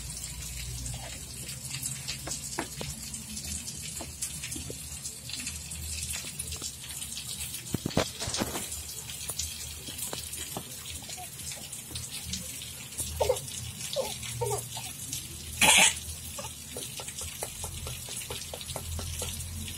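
Baby being fed purée from a squeeze-bottle spoon feeder: wet mouth and lip-smacking sounds with many small clicks. A few short pitched squeaks come about two-thirds of the way through, followed by one brief loud noisy burst.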